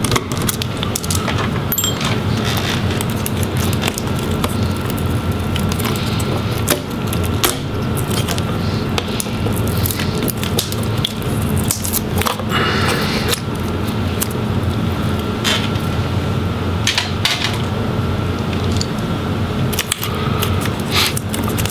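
Clicks, scrapes and small rattles of a screwdriver and loose parts being handled on a laptop's plastic and metal chassis during disassembly, over a steady hum.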